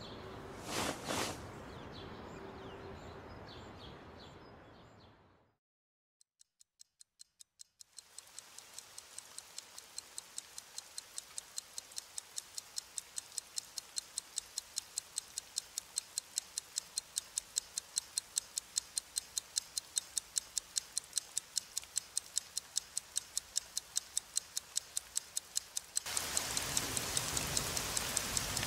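Wall clock ticking rapidly and evenly, several ticks a second, fading in from silence and growing steadily louder. Near the end the steady hiss of rain joins the ticking.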